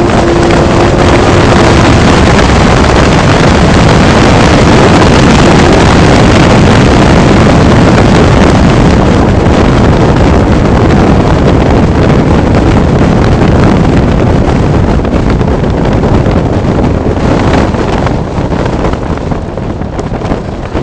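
Twin-turbo Nissan 300ZX's 3.0 L V6 under hard driving on a race track, its engine note mixed with loud wind and road noise hitting the camera microphone. The din eases off over the last few seconds as the car slows into a corner.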